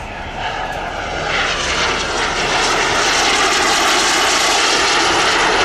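Two CARF F-100 Super Sabre model jets passing in formation, the rush of their turbine engines growing louder about a second in and then holding, with a high whine slowly falling in pitch.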